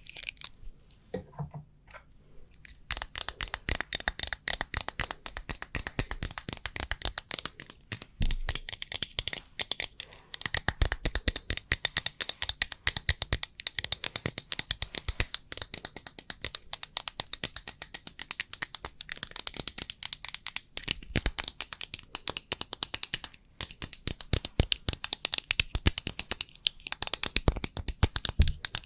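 Rapid, crisp tapping on a small fan and a standee clip, many quick taps a second. It is sparse and softer for the first few seconds, then dense and steady.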